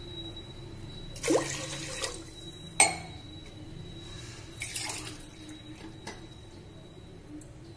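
Water poured from a steel vessel into a pressure cooker pot already holding water and grain: two short splashing pours, each about half a second to a second long, with a sharp metal clink after each. A faint steady high tone runs underneath.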